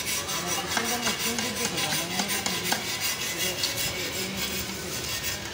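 Rubbing and scraping of metal hand tools being handled over engine parts, with a few light clicks.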